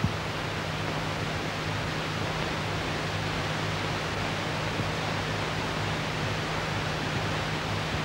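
Steady hiss with a low hum from an old film soundtrack, with no distinct event sounds. There is a single click at the very start.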